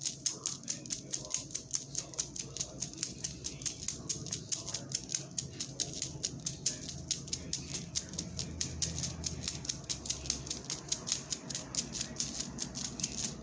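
Fast, even ticking of a clock mechanism, several sharp ticks a second, over a faint low hum.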